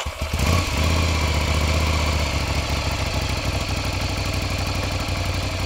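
Motorcycle engine catching on the starter, running a little higher for about the first second and a half, then settling into a steady idle.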